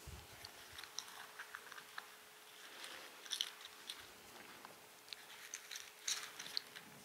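Faint crinkling and small clicks of thin Bible pages being handled and turned, scattered and irregular.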